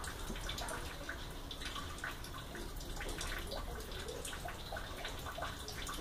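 Faint, irregular small clicks and taps of multimeter test probes being handled against the terminals of a plastic washing-machine water inlet valve, over a low steady hum.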